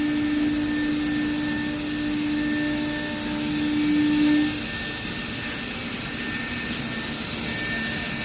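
CNC router running with a steady high spindle whine that cuts off about four and a half seconds in. A quieter steady machine hum and hiss carry on after it.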